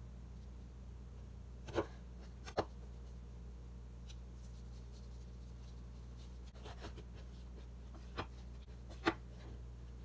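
Chef's knife slicing pickled radish on a bamboo cutting board, the blade knocking sharply on the wood about four times in two pairs, with a low steady hum underneath.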